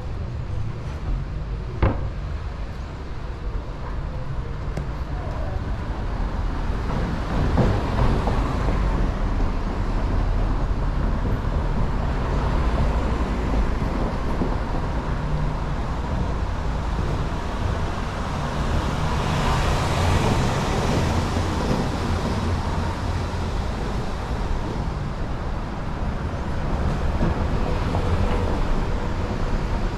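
Town street traffic: a steady low rumble of motor vehicles, with one vehicle passing louder about twenty seconds in and a single sharp click about two seconds in.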